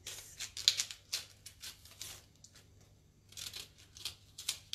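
Tough outer leaves being snapped and torn off an old, hard artichoke by hand: a quick run of crisp snaps and tears, in two bursts with a pause of about a second between.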